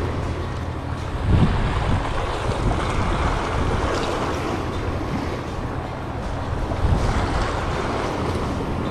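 Small waves washing and splashing against the jetty's rocks, with wind buffeting the microphone. There are louder surges about a second and a half in and again near the end.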